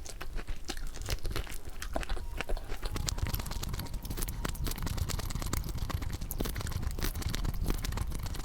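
Crunching and chewing of crispy butter crunch fried chicken, with many sharp crackles of the coating breaking and some tearing.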